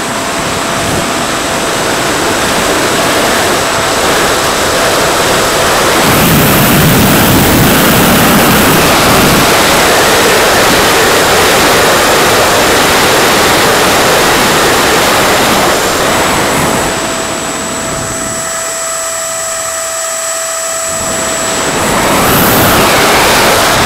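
A radio-controlled model airplane in flight, heard from its onboard camera: a steady electric-motor whine under heavy wind rush. About two-thirds of the way through, the rush eases for a few seconds and the whine stands out clearly, then the rush builds again.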